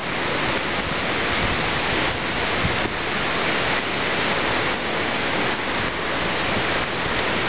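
Steady rushing hiss of tropical-storm wind and rain sweeping through palm trees.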